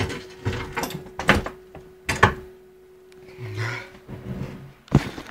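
Several sharp knocks and clatters of objects being handled. A steady low hum runs under them and stops a little past halfway.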